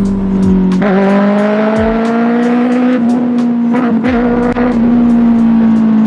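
Kawasaki ZX6R's 636cc inline-four engine and exhaust running hard at high revs. The pitch dips briefly about a second in, then climbs steadily before holding level, with wind noise on the microphone.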